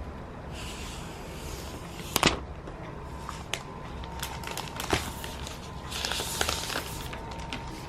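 Close handling noise: a few short rustles and several light clicks and taps, over a low hiss.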